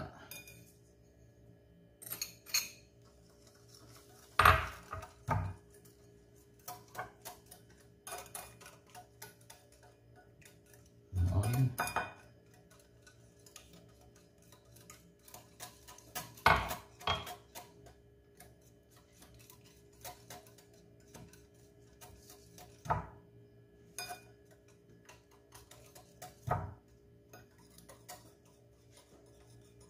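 Scattered clinks and knocks of a wire whisk and glassware against a glass mixing bowl as batter is mixed, with a few louder knocks among lighter ticks, over a faint steady hum.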